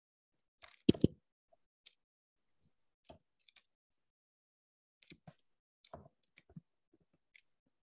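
Computer mouse and desk clicks: a sharp double knock about a second in, then a scatter of quieter clicks.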